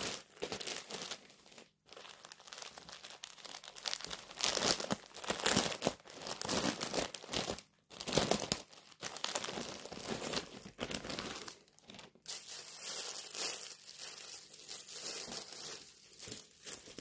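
Plastic clothing packaging crinkling and tearing as it is handled and opened, in irregular bursts of rustling with short pauses between them, ending with a printed shirt being pulled out of it.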